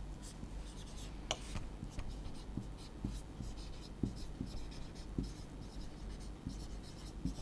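Marker pen writing on a whiteboard: faint scratchy strokes, with a light click a little over a second in.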